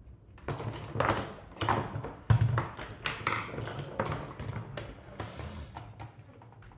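Irregular clicking and clattering of small hard tool parts being handled, as when searching through a precision screwdriver set for a tiny Phillips bit; the loudest knock comes about two and a half seconds in.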